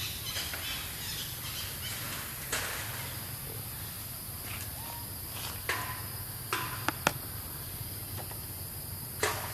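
Outdoor insect chorus, a steady high-pitched buzzing, with about half a dozen sharp clicks and knocks scattered through it, the loudest about seven seconds in.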